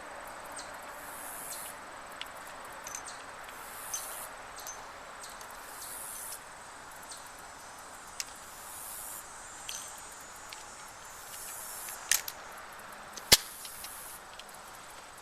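Insects chirping in regular pulses about every second and a half, over a steady outdoor hiss. There are scattered small clicks, and one sharp click or knock about thirteen seconds in.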